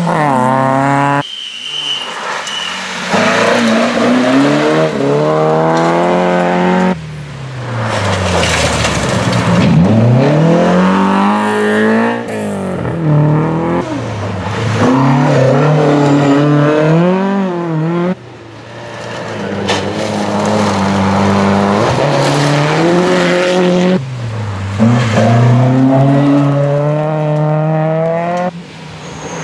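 Historic rally cars driven flat out on a gravel stage, one short pass after another. Each engine revs high, its pitch falls away at the gear changes and climbs again, and the sound cuts off abruptly between clips several times.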